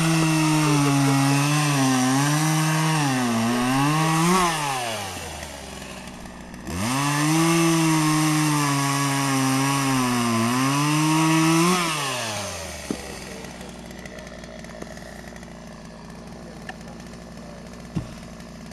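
Chainsaw cutting through logs in two bursts at full throttle, each lasting about five seconds. The engine note sags and recovers as the chain bites into the wood, then drops back after each cut. Near the end there are only a couple of light knocks.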